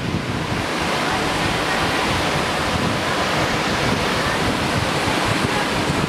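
Salt Creek Falls, a tall waterfall, heard close to its base in the spray: a loud, steady rush of falling water. Gusts of wind buffet the microphone.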